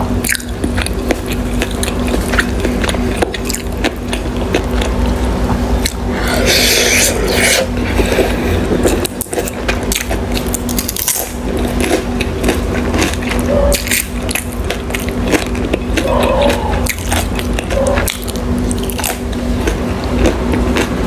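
Close-miked eating of dim sum: many quick mouth clicks and chewing sounds with occasional scrapes, over a steady low hum. A brief hissy rustle comes about six and a half seconds in.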